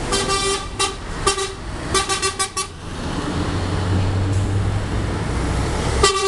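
Lorry horns blowing a string of short toots over the first three seconds, four of them in quick succession about two seconds in. Then a heavy lorry's engine rumbles past, and another horn blast sounds near the end.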